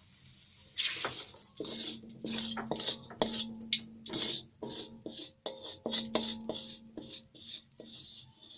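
A cooking utensil clanking and scraping against a pan while food is stirred, in a quick irregular run of knocks starting about a second in.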